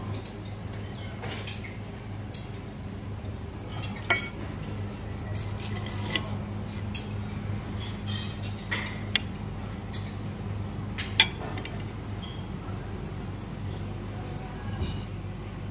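Metal cutlery clinking and scraping on china plates and bowls, in scattered sharp clinks, the loudest about four and eleven seconds in, over a steady low hum.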